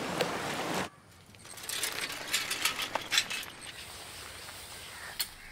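Muddy water rushing through a narrow concrete-edged channel, cutting off abruptly about a second in. Then, much quieter, faint crunching footsteps on a dirt path with light rustling.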